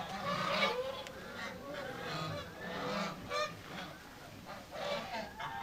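Geese honking: many short calls, overlapping and repeating.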